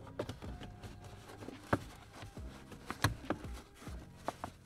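Handling noises as a shifter boot is worked down over the gear lever: a handful of irregular light clicks and knocks from the boot and plastic console trim, loudest around two and three seconds in.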